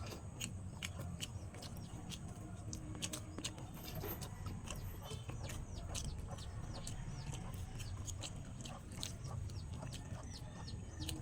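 Chewing on banana peel: a run of wet mouth clicks and smacks. Birds chirp over and over behind it, high and short.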